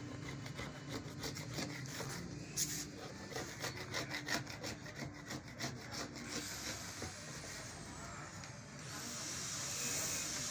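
A putty knife scraping hardened gelcoat and calcium-powder putty off the edge of a fiberglass door, in rapid repeated strokes for about six seconds. Toward the end the strokes give way to a steady hiss that grows louder.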